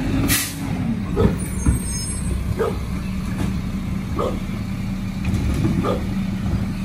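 Garbage truck's diesel engine running with a steady hum, while a pit bull barks at it in short single barks every second or two. A brief hiss of the truck's air brakes comes just after the start.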